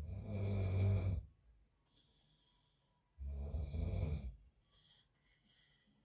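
A man snoring in his sleep: two loud, rattling snores about three seconds apart, the first right at the start and the second about three seconds in, with quieter breaths between.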